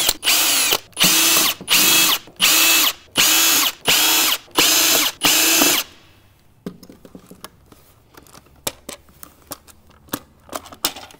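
Cordless drill backing screws out of a plastic battery case in about eight short full-speed runs, each starting with a rising whine and stopping sharply. After about six seconds only light clicks and knocks of the plastic case being handled remain.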